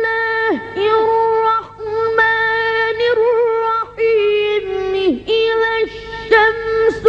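A child's high voice chanting Quranic recitation in the melodic tajweed style: long, level held notes, each phrase ending in a quick falling pitch, with brief pauses between phrases.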